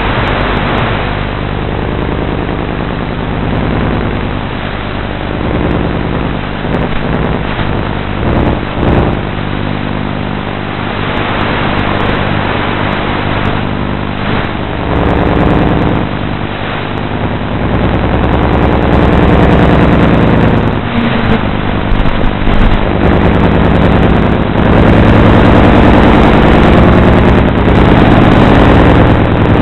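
Motor and rotor of a 450-size RC model running steadily, heard through its own onboard camera's microphone as a hum of several evenly spaced tones under a rough, noisy wash. It gets louder a little past halfway and again later.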